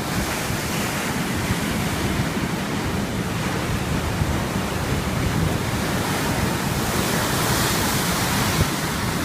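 Sea waves washing on the shore, a steady rushing hiss that swells about seven seconds in, with wind rumbling on the microphone.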